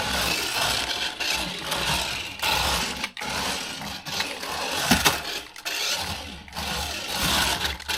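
Small brushed electric motor and gears of a cheap 1/24-scale RC drift car running at full throttle in repeated bursts, cutting out briefly several times. It has only one throttle speed, so it is either flat out or off.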